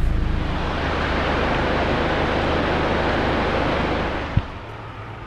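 Floodwater rushing and splashing around a car driving through a flooded road, a steady wash over the low engine hum that dies away about four seconds in, followed by a single sharp knock.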